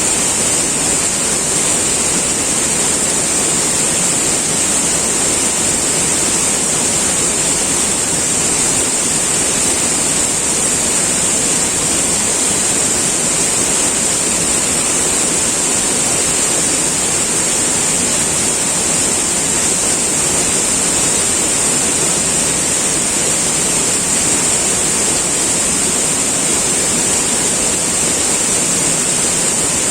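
River water rushing and flowing in a steady, unbroken stream, with a strong high hiss.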